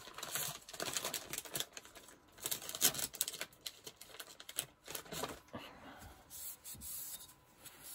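Quick, irregular tapping and rubbing on paper card, densest in the first few seconds, as a thin border is coloured along the edge of a ruler.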